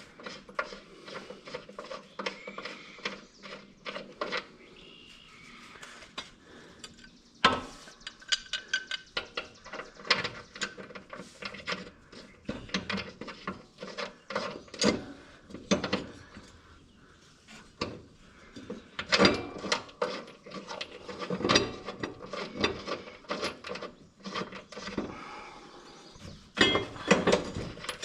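Hand ratchet wrench clicking in short quick runs, mixed with metal knocks, as a mower blade's bolt is run onto the deck spindle.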